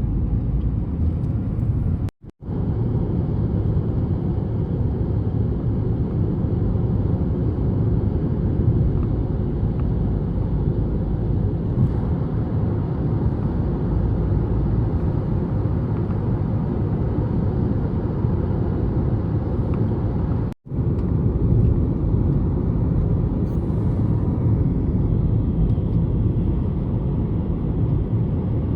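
Steady road and engine rumble inside a moving car. It drops out completely for a moment twice, where clips are joined.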